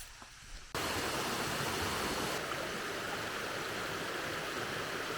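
Rushing water of a burn (stream), a steady loud rush that starts abruptly about a second in after a quiet start, dropping slightly about halfway through.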